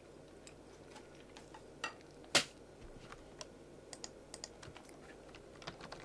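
Typing on a computer keyboard: scattered single keystrokes, one louder click about two and a half seconds in, and quicker keystrokes near the end.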